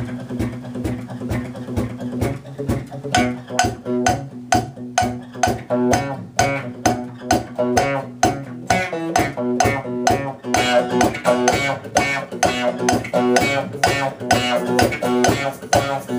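Live band playing an instrumental break: guitar and bass over a steady, even beat, growing fuller about two-thirds of the way through.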